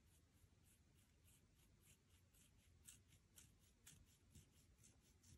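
Faint, sticky clicks and crackles of slime being kneaded and mixed by hand, about four a second.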